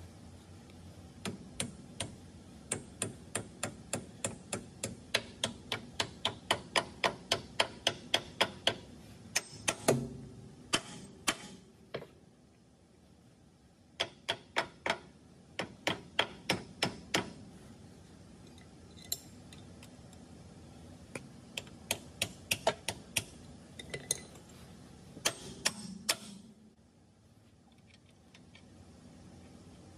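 Hand ratchet clicking in runs of about three clicks a second, with pauses between runs, as a bolt on a Hendrickson walking beam end bushing is turned. A single heavier metal clunk about ten seconds in.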